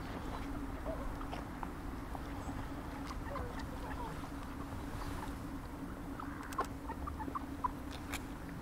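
A flock of mallards feeding on grass, giving scattered soft clicks and short quiet calls, with a cluster of them a little past halfway, over a steady low hum.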